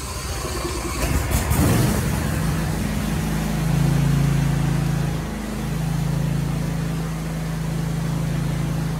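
John Deere S180 riding mower engine cranking and catching, then running steadily, with a brief dip about five seconds in.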